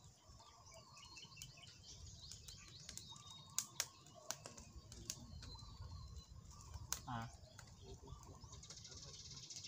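Faint crackling and snapping from a small twig fire being tended, a scatter of sharp clicks, over a low steady rumble. Birds chirp throughout, and one short falling call comes about seven seconds in.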